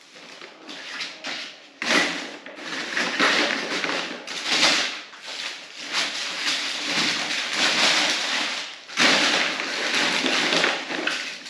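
Wrapping paper and gift packaging being crumpled and rustled in irregular noisy bursts during the clean-up after gift unboxing.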